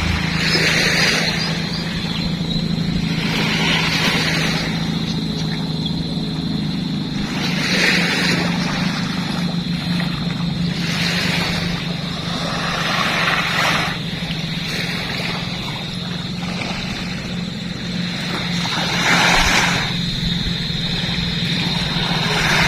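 Sea waves washing onto the beach, a swell of surf every few seconds, over a steady low engine drone.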